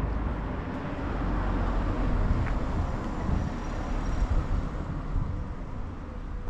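A car passing on a street: a steady rumble and tyre hiss that swells over the first couple of seconds and then slowly fades.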